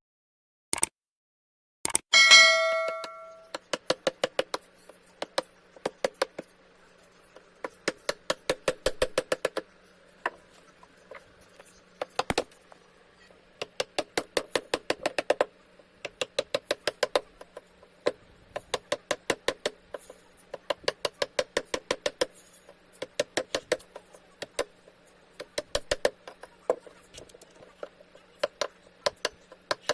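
A single bell-like ding about two seconds in, then runs of quick light taps or clicks, often several a second in short bursts, over a faint steady hum.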